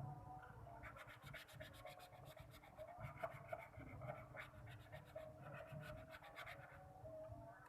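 Faint, rapid scratching and rubbing: a hand rubbing firmly over a glued part so that the adhesive bonds.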